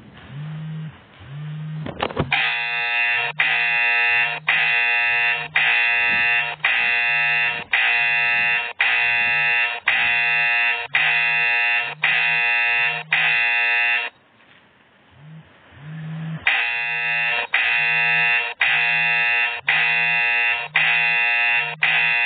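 Smartphone vibrating in pulses and sounding a loud, harsh buzzer-like alert about once a second, with a gap of about two seconds partway through. This is plausibly the GoPartner driver app's incoming-order alert.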